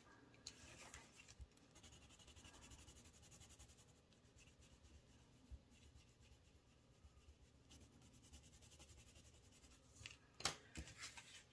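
Near silence: faint rustling and light scratching of paper and paper money being handled, with a few short, crisper paper sounds about ten seconds in.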